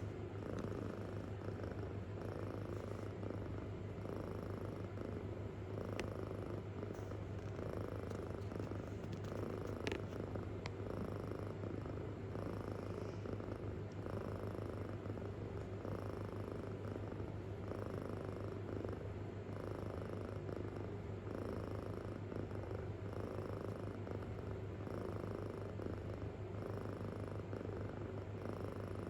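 Kitten purring deeply and steadily, close up, the purr swelling and fading with each breath in and out.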